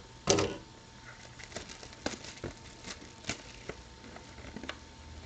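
A trading-card box and its wrapping being opened and handled: a sharp rustle about a third of a second in, then scattered crinkles and light clicks.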